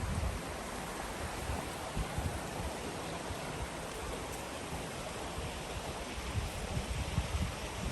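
Steady rush of a mountain stream's flowing water, with occasional low rumbles of wind on the microphone.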